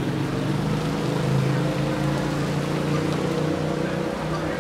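A vehicle engine running steadily close by, a low even hum that holds its pitch.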